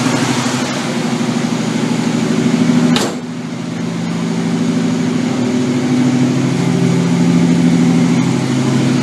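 Engine running steadily after a hard start. A single sharp crack comes about three seconds in, and the sound dips briefly before building back up.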